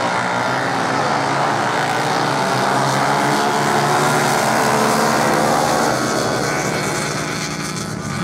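A pack of racing motorcycles running hard on beach sand, many engines droning together at high revs. The sound swells as they pass and fades as they pull away near the end.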